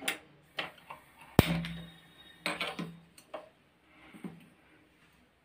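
A Prestige glass-top gas stove being lit: a run of sharp clicks and knocks, the loudest a sharp pop with a low thud about a second and a half in, as a burner is turned on and catches.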